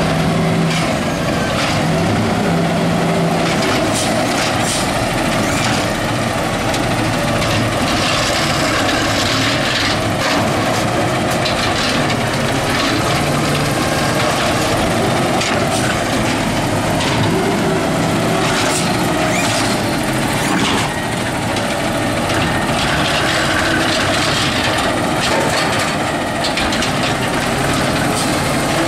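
Autocar ACX garbage truck with a McNeilus Zero Radius side-loader body, its engine running steadily close by, with a few knocks.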